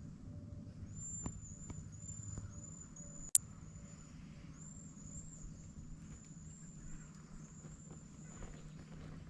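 Quiet outdoor ambience: a continuous series of thin, high-pitched chirps over a low steady rumble, with one sharp click a little over three seconds in.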